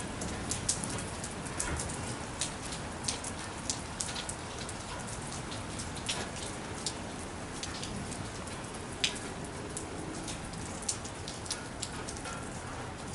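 Light rain falling steadily, with irregular sharp taps of single drops striking a nearby surface; one louder drip about nine seconds in.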